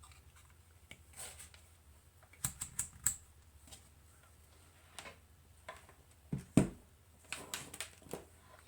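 Scattered light clicks and taps of hands handling tools and small parts on a workbench, with a cluster of clicks about two and a half seconds in and a louder knock past the middle.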